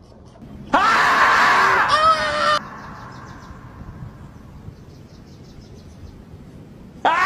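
A loud scream lasting about two seconds, jumping sharply up in pitch at its start and holding high. It begins about a second in. A second scream starts just before the end.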